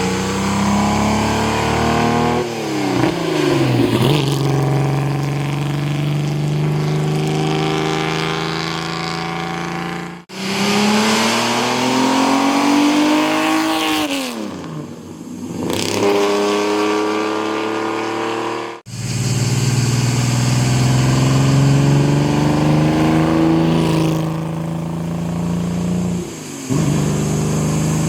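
Historic racing car engines at full throttle, each revving up through the gears with a sudden pitch drop at every upshift, then falling in pitch as the car passes. Several separate passes, each cut off abruptly.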